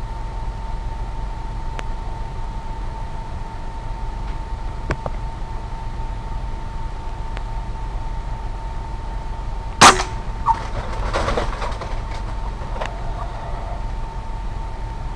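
A single sharp crack of a .22 Benjamin Discovery PCP air rifle firing a pellet, about ten seconds in. A fainter knock and brief rattling follow it, all over a steady thin whine and low hum.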